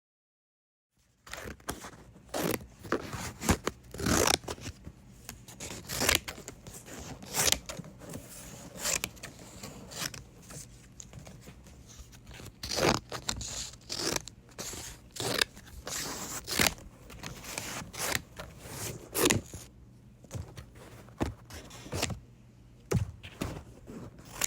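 Thick paper being cut slowly, a continuous rasping crunch broken by irregular sharp snips every second or so. It starts about a second in and stops near the end.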